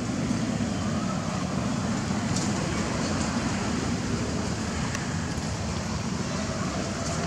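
Steady low background rumble with a few faint ticks.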